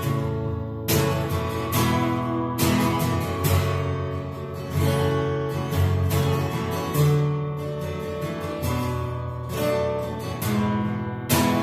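Acoustic guitar strummed, a run of chords ringing out one after another.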